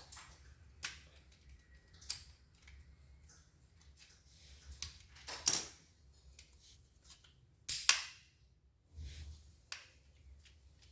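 Scattered sharp clicks and light knocks of small plastic and metal copier drive parts being handled and fitted by hand, with two louder knocks about five and a half and eight seconds in.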